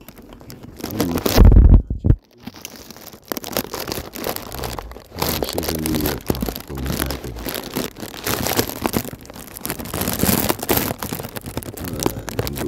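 Rustling, crackling noise close on the camera microphone, typical of handling or wind buffeting. A loud low thump comes about one and a half seconds in, the sound drops out briefly just after it, then the rustle carries on.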